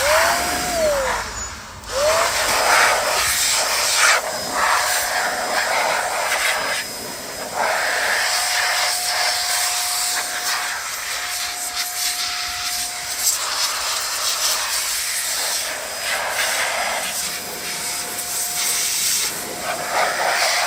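Air blower blowing accumulated dust out of the inside of an iMac: a loud, steady rush of air with a high whine running under it, easing off briefly about two seconds in and again around seven seconds.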